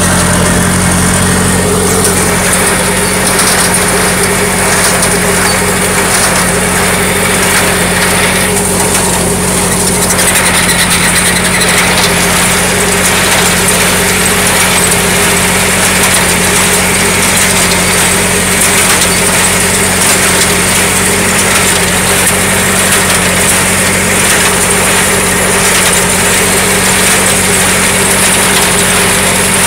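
Tractor engine running steadily, pulling a New Holland 273 square baler that is working behind it.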